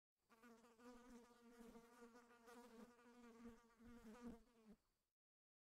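A flying insect buzzing faintly at one steady pitch, cut off suddenly near the end.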